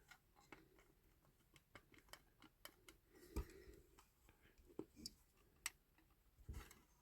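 Near silence with faint, scattered light clicks and taps from handling the small parts of a diecast model car.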